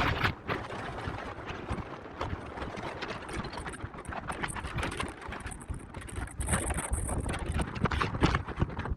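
Strong wind buffeting the microphone: a continuous rumble with irregular gusty thumps and rushing noise.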